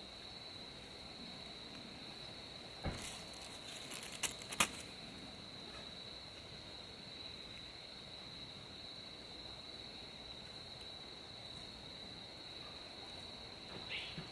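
Crickets trilling steadily in one continuous high note, with a few sharp clicks of handling about three to five seconds in.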